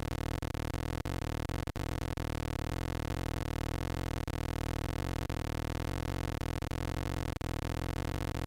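A steady electronic drone of many held tones, like synthesizer background music, unchanging in pitch and level, with a brief dropout about two seconds in.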